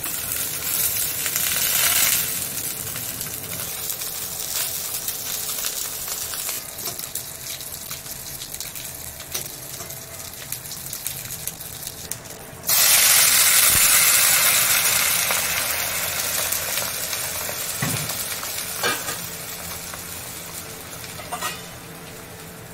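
Food frying in a hot pan, a steady sizzle of oil. About thirteen seconds in the sizzle jumps suddenly much louder, then slowly dies down.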